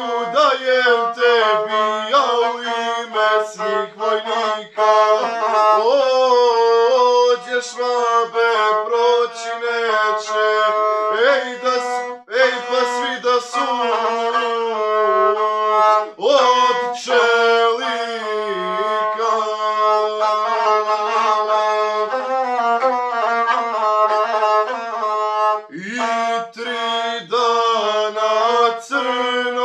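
Gusle, the single-string bowed folk instrument, being bowed to accompany a man singing an epic song in the guslar style.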